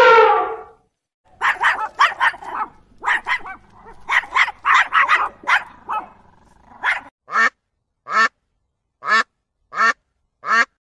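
The end of an elephant's trumpet fades out in the first second. A small terrier follows with a run of quick barks. Near the end, a mallard quacks five times, evenly spaced.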